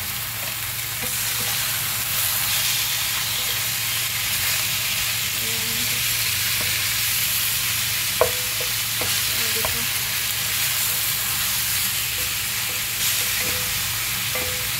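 Lamb shanks and sliced shallots sizzling steadily in oil in an enamelled pan, with a wooden spatula scraping and turning the meat. One sharp knock about eight seconds in.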